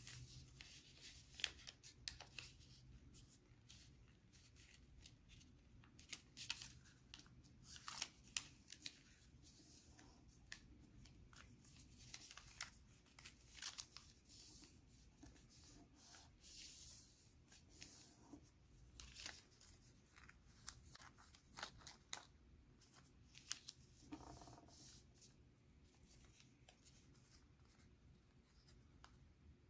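Faint rustling and crinkling of origami paper being folded and creased by hand, in scattered short crackles.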